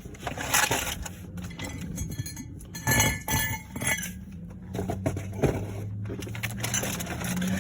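Metal clinks and knocks of tools and brake parts being handled while a new brake rotor and its retaining screw go back on the hub, the loudest knock about three seconds in. A low steady hum comes in about two-thirds of the way through.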